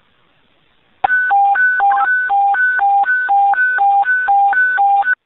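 Two-tone radio dispatch alert: a high and a low beep alternating quickly, about two pairs a second, starting about a second in and lasting about four seconds. It is the attention tone sent over the dispatch channel before EMS is called out.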